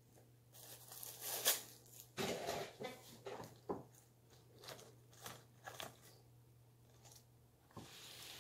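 Close-miked eating noises: food and its paper wrapper being handled, with crinkling, crunching bites and chewing in irregular short bursts. The loudest snap comes about a second and a half in, and a dense run follows from about two to four seconds in.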